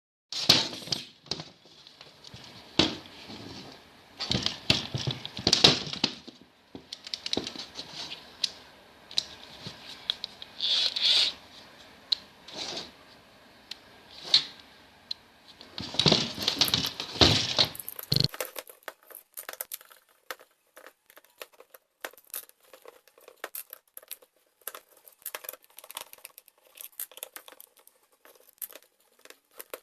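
Irregular bursts of rustling and crinkling with sharp knocks, as of things being handled; after about 18 seconds it gives way to a quieter run of quick, light clicks.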